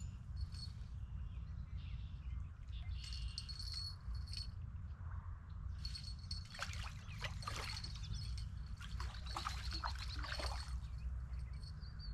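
Songbirds singing: a repeated high trill, then a busy run of quick chirping notes through the second half, over a steady low rumble.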